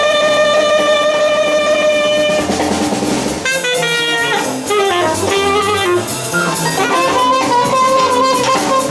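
Live jazz band: a saxophone holds a long note, then plays a run of shorter notes and settles on another long note, over a drum kit.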